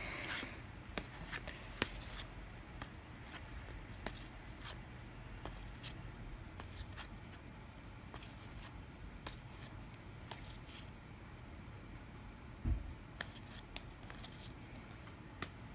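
Baseball trading cards being handled and flipped through one by one: faint, irregular soft clicks and slides of card stock, with a dull bump late on.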